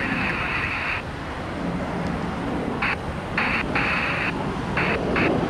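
Air traffic control radio on the airband, a narrow, tinny signal that cuts off about a second in and then keys on and off in several short bursts from about three seconds in. Beneath it runs a steady low rumble of airport noise.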